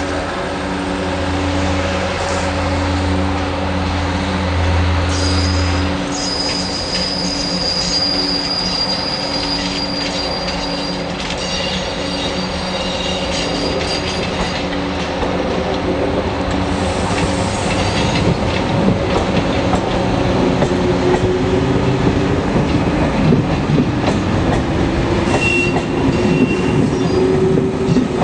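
SNCF X 2700 diesel railcar set moving slowly through station trackwork, its engine running while the wheels squeal high-pitched in bursts and click over rail joints and points. In the second half the engine note rises steadily as the train picks up speed.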